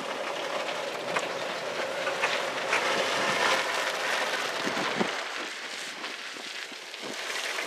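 Road noise inside a moving vehicle: a steady rushing with scattered rattles and clicks as it drives over a rough road.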